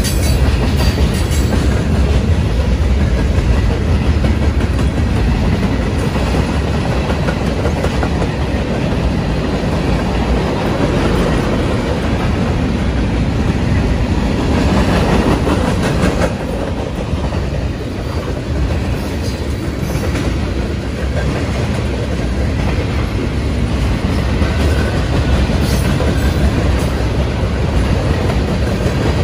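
Freight cars of a Union Pacific manifest train rolling past, a steady loud rolling noise of steel wheels on rail with clickety-clack over the rail joints and occasional sharp clanks.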